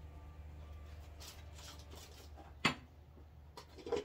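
Plastic food containers being handled at an open refrigerator, with one sharp knock a little past halfway and a softer one near the end, over a steady low hum.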